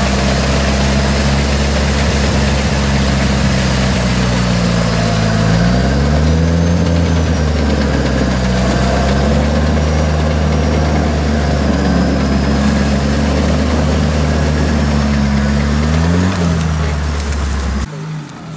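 A four-wheel-drive off-roader's engine running steadily under load in a mud bog, with a loud haze of noise over it. The revs rise and fall about six seconds in and again near the end, and the sound drops off suddenly just before the end.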